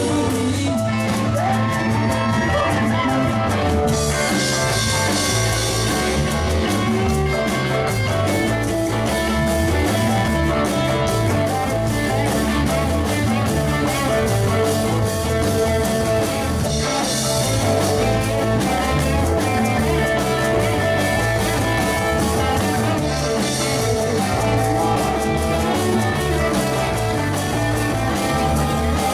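A rock band playing a song, with guitar to the fore.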